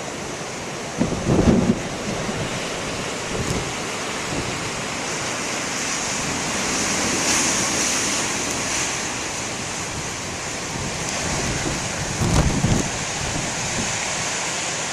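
Heavy ocean surf breaking and washing in a steady rush that swells up in the middle. Strong wind buffets the microphone in low gusts about a second in and again near the end.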